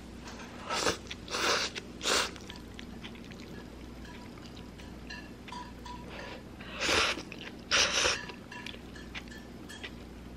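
Slurping instant noodles: three short, hissy slurps about a second in and two more around seven seconds, with small faint eating clicks between.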